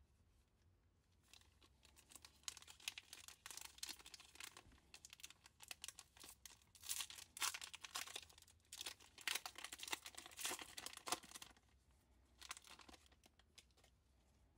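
Foil wrapper of a 1996 Upper Deck trading card pack being torn open and crinkled by hands in nitrile gloves. A run of crackling rips and crinkles starts about a second in and stops a few seconds before the end, with one brief crinkle after.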